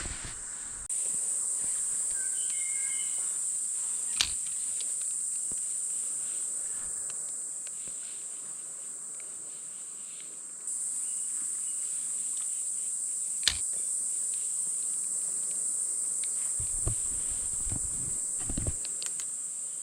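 Steady high-pitched drone of rainforest insects, with two sharp clicks and some low thuds near the end.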